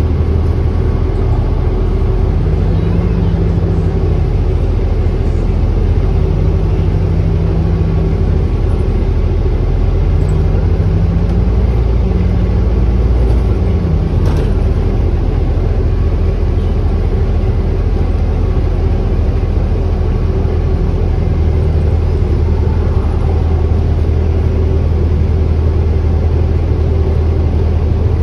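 Inside an Orion hybrid-electric city bus under way: a steady low rumble of drivetrain and road. A hum rises and falls in pitch several times in the first half as the bus speeds up and slows.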